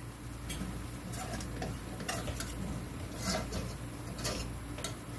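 A utensil scraping and clicking against a stainless steel skillet as a flour-and-fat roux with onions is stirred, in light irregular strokes about once a second.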